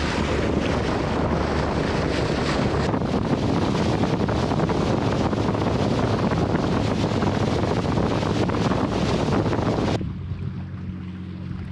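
Wind buffeting the microphone over water rushing past a moving boat, a loud, even noise. About ten seconds in it cuts off abruptly to a quieter steady low hum.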